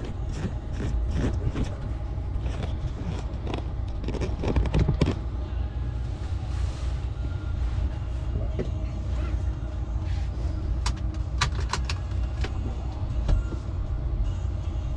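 Clicks, rattles and knocks of a camera being handled and fitted to its mount on a car's ceiling, over a steady low rumble; a few more sharp clicks come later.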